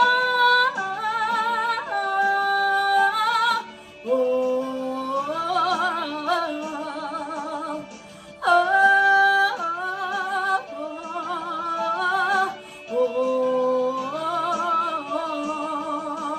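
Live worship singing with music: a woman's voice holds long notes with vibrato in phrases a few seconds apart, with short breaths between them.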